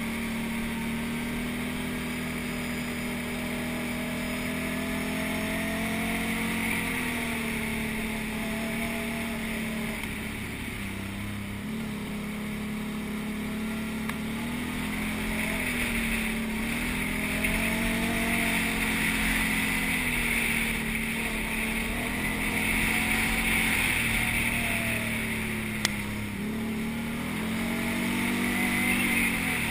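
Can-Am quad bike engine running under way, its note rising and falling again and again as the throttle is opened and eased, with steady wind and riding hiss. A single sharp click sounds near the end.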